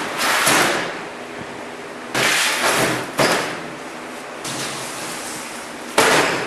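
Heavy steel angle iron being set down and shifted on a steel-topped cart: a series of clanks and scrapes, some ringing on for a moment. The last sharp knock, about six seconds in, is the cardboard-wrapped steel cutting edge being laid on top.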